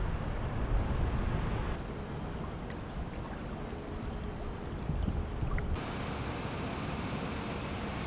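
Open dock water lapping and churning against a low, steady rumble, with no clear engine note. The background changes abruptly twice, about two and six seconds in.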